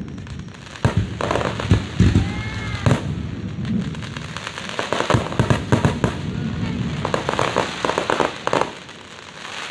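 Fireworks display: several sharp bangs of shells bursting in the first few seconds, then a long run of dense crackling that dies away near the end.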